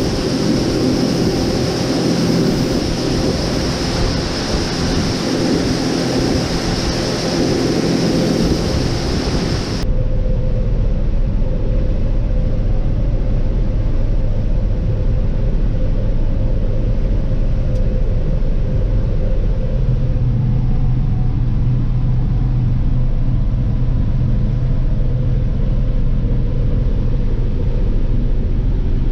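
Farm harvest machinery running steadily: an engine with a broad rushing noise at first, then an abrupt change about ten seconds in to a lower, steady engine drone.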